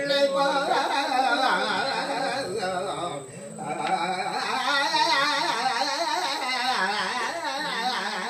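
A man singing a virutham, a free-rhythm devotional verse in Carnatic style, without accompaniment. His pitch wavers and glides through ornaments, with a short break for breath about three seconds in.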